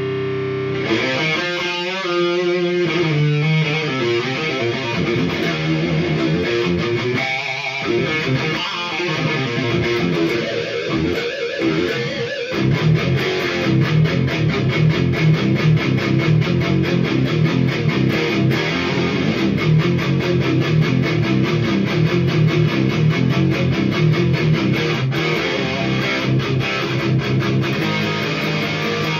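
Electric guitar in drop C through a Hiwatt Hi-5 all-tube 5-watt amp on its high-gain overdrive channel. It plays shifting single-note lead lines for the first twelve seconds or so, then a fast riff of rapidly repeated low notes.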